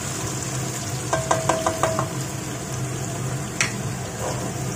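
Chilies, garlic, ginger and onion sizzling steadily in hot oil in a wok. A quick run of about six clicks comes about a second in, and one sharper click a little past the middle.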